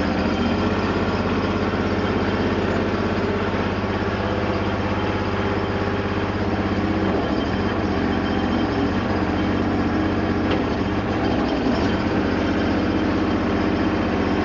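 A 1998 Terramite T5C compact backhoe's Honda engine running steadily.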